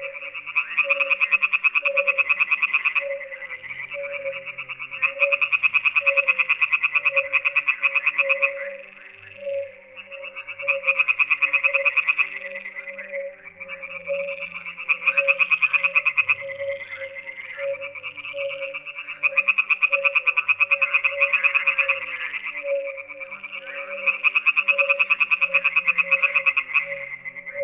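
A chorus of frogs calling in long runs of fast, rattling pulses, several seconds each, overlapping with short lulls between. A lower note pulses about twice a second underneath.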